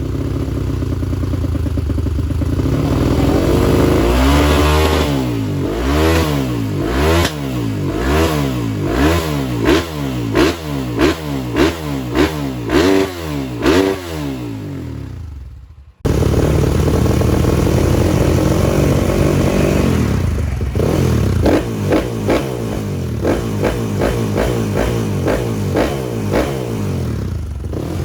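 Four-stroke trail motorcycle engines revved in a quick series of throttle blips, the pitch jumping up and falling back each time. About halfway through the sound cuts off abruptly and an engine is heard running again, blipped a few more times.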